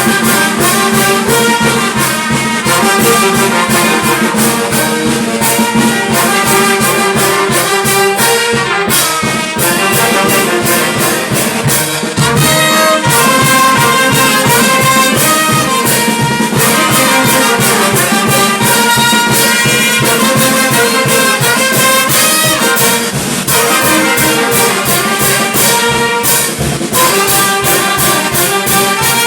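Brass band music: trumpets and trombones playing a melody together over a steady percussion beat.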